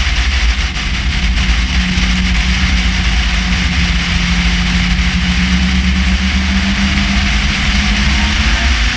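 Race car engine running at speed on a steady throttle, heard on board over wind and road noise; the engine note holds almost level throughout.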